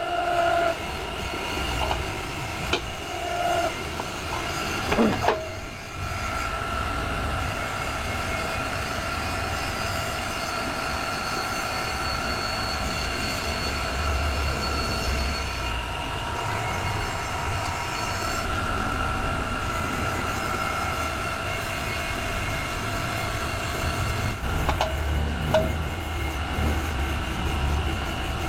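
Wheel repair machine running steadily, a whine of several steady tones over a low rumble, as the cracked alloy wheel is worked back to round. A few short clicks and a brief knock come in the first few seconds.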